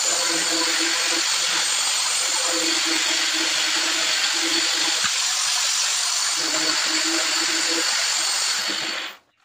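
Angle grinder fitted with a 22 mm diamond core bit, running at full speed as it wet-cuts a hole in granite: a steady high whine and hiss, with a lower grinding note that swells and fades as the bit is pressed into the stone. Near the end the grinder is switched off and quickly winds down.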